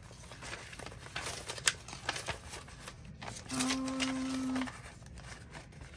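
Paper date numbers and labels rustling, crinkling and ticking as they are rummaged through by hand, with a short steady hum lasting about a second midway.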